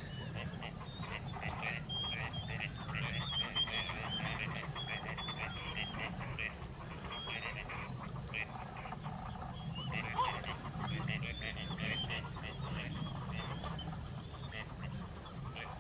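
Gadwall duck calls: many short calls repeated in quick runs, with four sharp, louder clicks among them.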